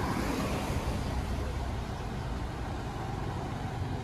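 Street traffic going by: a steady low rumble of passing vehicles, a little louder in about the first second.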